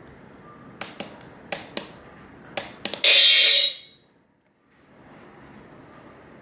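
Six sharp clicks in three pairs, like a clock's buttons being pressed, then about three seconds in a loud electronic alarm sounds for under a second and cuts off abruptly, from an Adesso OKITE! ES-01 alarm clock.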